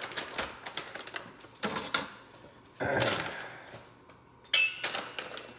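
Rustling and rattling of a food packet being handled and emptied over mixing bowls, in short bursts. About four and a half seconds in there is a sharper clink that rings briefly.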